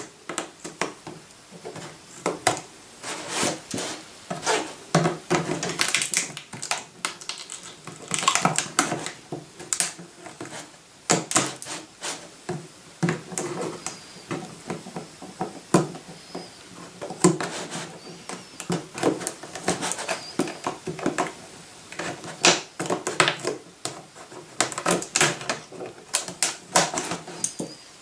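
Scissors cutting holes in the thin plastic of a 5-litre water bottle: a long run of irregular snips and plastic crackles.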